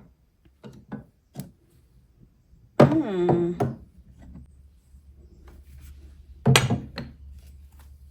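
Knocks and clunks of cologne bottles and other items being handled and set down on a hard surface, with two louder clunks about three seconds and six and a half seconds in.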